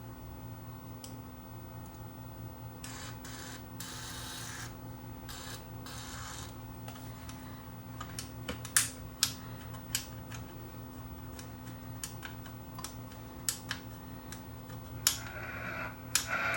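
Short hisses of aerosol contact cleaner sprayed into a radio control, then a run of sharp clicks and crackles as the control is worked, over a steady low hum. Near the end a louder rushing noise rises.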